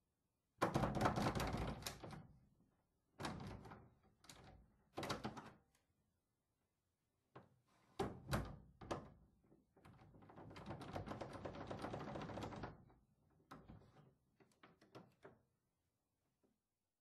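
House door being opened and closed over and over, with latch and handle clicks and knocks in quick clusters and several thuds. A longer stretch of continuous rubbing noise comes about ten seconds in, and the sounds stop about a second before the end.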